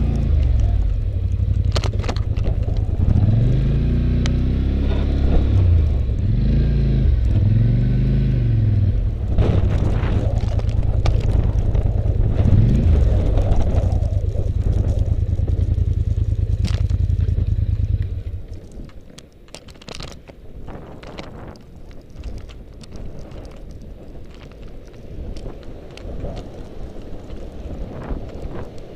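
Polaris Sportsman 850 ATV engine running under load and revving up and down repeatedly while plowing snow. About two-thirds of the way through the engine sound drops away, leaving a much quieter background with scattered clicks.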